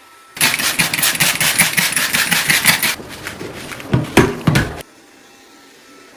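Quick, rhythmic scrubbing strokes for a couple of seconds, then a few slower, heavier strokes that stop abruptly.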